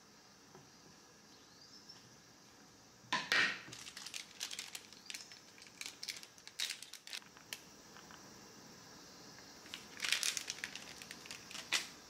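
Small packet of ground cinnamon crinkling as it is handled and shaken over the pot. There is a loud burst about three seconds in, scattered crackles after it, and another burst of crinkling near ten seconds.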